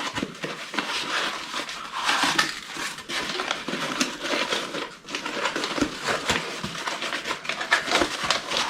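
Packaging crinkling and rustling as a parts box is opened and unwrapped by hand, with many small crackles and ticks.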